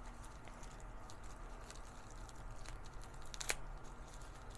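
Faint handling noises: light rustles and small clicks of unboxed accessories and packaging being handled, with one sharper click about three and a half seconds in.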